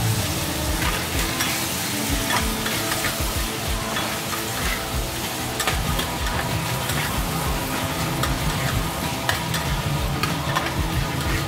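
Pineapple chunks and diced vegetables sizzling in oil in a frying pan while a spatula stirs and scrapes them, with scattered clicks of the spatula against the pan.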